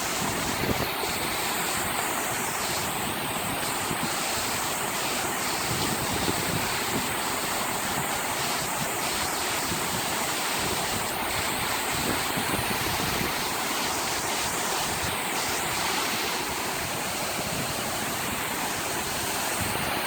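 Steady rushing roar of a tall waterfall, water falling and splashing onto rocks.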